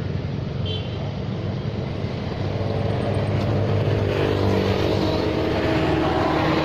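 Road traffic passing close by: a steady engine drone, with a vehicle approaching and growing louder over the second half as an SUV comes into view.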